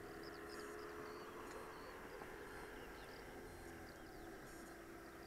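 Faint outdoor ambience: many quick high chirps repeating over a low steady hum that drops slightly in pitch about two-thirds of the way through.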